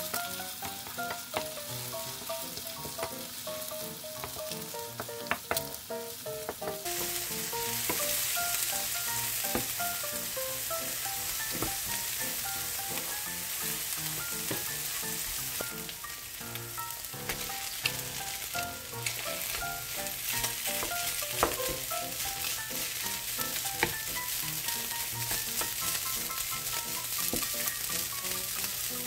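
Beaten eggs and chopped green onion, carrot and onion sizzling in oil in a frying pan while being scrambled and stir-fried with a wooden spatula, which clicks and scrapes against the pan now and then. The sizzle grows louder about seven seconds in, and cooked rice is being stirred in near the end.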